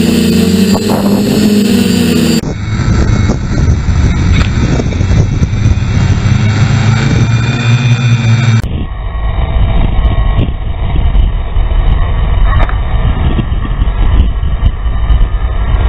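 TBS Discovery quadcopter's electric motors and propellers whining, their pitch rising and falling with the throttle in the first couple of seconds, under a heavy rumble of wind on the onboard camera's microphone.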